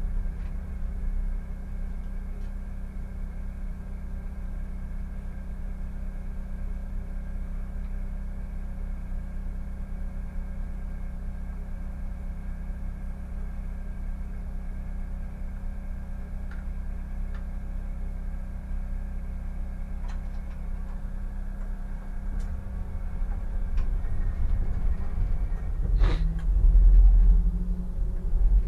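Low steady rumble and hum of a Solaris Tramino S105p tram heard from its cab. It grows louder in the last few seconds as the tram runs through the junction, with one sharp knock near the end.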